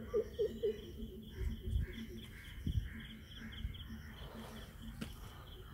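Riverside wildlife calls: a fast, even pulsing high call running on throughout, with a quick run of lower repeated calls, about four a second, at the start. A few low thumps from handling come in between.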